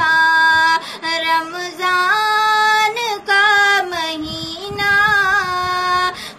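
A high solo voice singing an Urdu naat that bids farewell to Ramadan, drawing out the word 'Ramzan' about two seconds in, with long held notes and slow glides between them.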